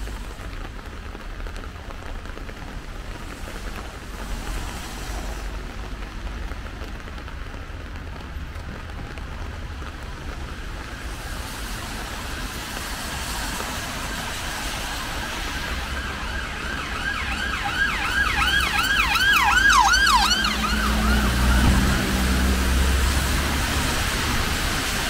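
Rain falling steadily on a city street. Past the middle, an emergency vehicle's siren goes by, sweeping rapidly up and down about four times a second for a few seconds, with the rumble of the passing vehicle just after.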